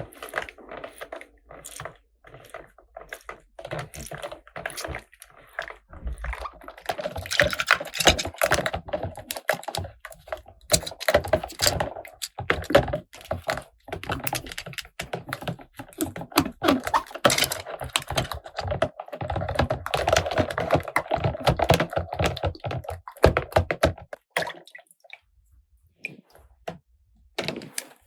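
Small plastic toy pieces from a makeup and beauty salon playset being handled, with quick runs of clicks, taps and clatters; the clicking stops for a few seconds near the end, then a few more clicks follow.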